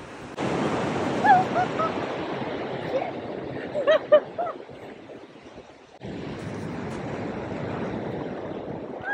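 Ocean surf washing on the beach with wind, and gulls calling: a few short cries about a second in and again around four seconds. After a cut near six seconds only the steady surf remains.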